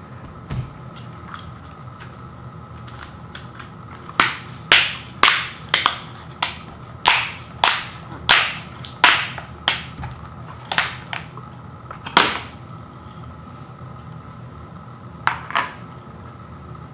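Snap-on plastic lid of a one-gallon ice cream pail being pried up with the thumbs around its rim, giving a run of sharp plastic snaps, about a dozen in eight seconds. Two more snaps follow near the end as the lid comes free.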